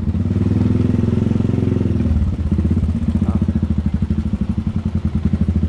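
Small Suzuki Thunder motorcycle engine running steadily under way, its pitch briefly swelling and easing off during the first two seconds.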